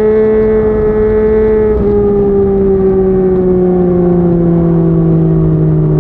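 Yamaha MT-09 inline three-cylinder engine running through a Yoshimura R55 slip-on exhaust at steady revs. About two seconds in its note changes, and the revs then sink slowly for the rest of the time.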